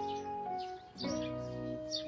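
Background music of held, sustained chords that change about once a second, with a brief drop in loudness just before the second chord.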